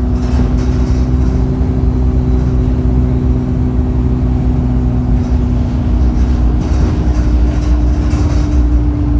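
Turbocharged bus engine running under way: a low rumble with a steady lower whine and a thin, high turbo whistle that rises slightly and then falls back.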